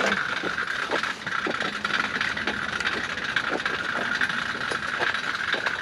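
A 1971 Dodge Challenger being pulled backwards, its wheels rolling slowly with many small irregular clicks and crackles. A steady high hum runs underneath.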